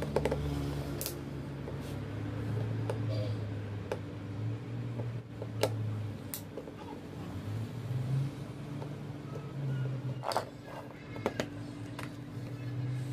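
Soft background music with a low droning bass that shifts between a few held notes. Over it, scattered clicks and taps as a screwdriver backs out the screws and hands prise open the plastic case of a cordless drill battery pack.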